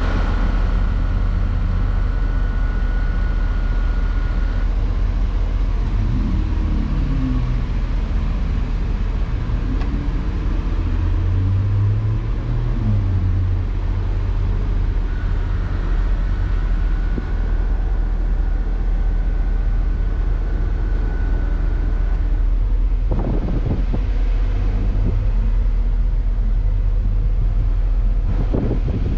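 Steady low rumble of vehicle engines and street traffic. Twice the drone of a passing vehicle rises and falls, and there are two sharp knocks near the end.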